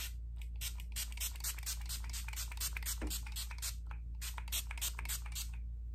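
Setting spray pump mister spritzed many times in quick succession, each pump a short hiss, stopping shortly before the end. The mister sprays coarsely enough to leave drops on the face, in the user's view.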